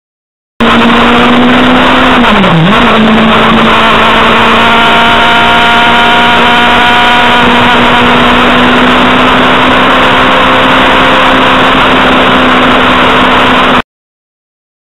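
Motorcycle engine held at high revs, heard from onboard at track speed with heavy wind rush over the microphone. Its pitch dips briefly about two and a half seconds in and comes straight back up, then holds steady until the sound cuts off suddenly near the end.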